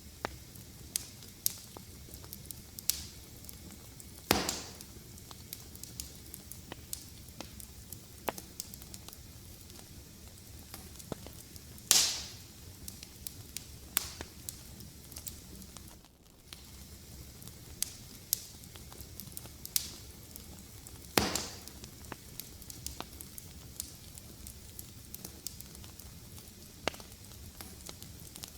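Wood fire crackling in a fireplace: a steady run of small sharp snaps and ticks over a low hiss, with three louder pops several seconds apart.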